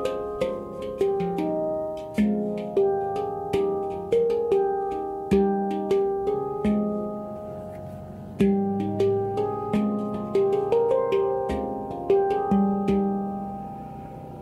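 F minor handpan (Oasis Sound Sculpture) played by hand: an unhurried melody of struck steel notes, each ringing and fading, with a deep bass note about eight and a half seconds in.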